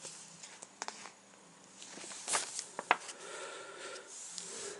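A hardcover picture book being handled and its pages turned: a few sharp taps and clicks, then paper rustling.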